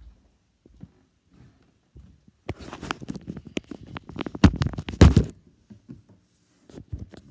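Handling noise of a phone recording in the hand: rubbing and clattering against its microphone as it is carried and moved, with the loudest thumps about five seconds in as it is set down on a table.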